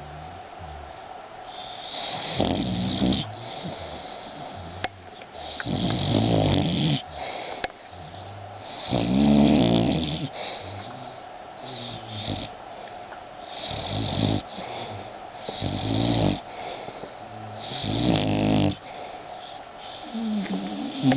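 Boxer dog snoring, a loud snore every few seconds.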